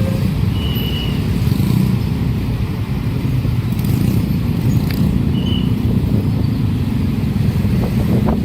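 A loud, steady low rumble of heavy vehicle or train traffic at a railway level crossing, with a few short high squeaks.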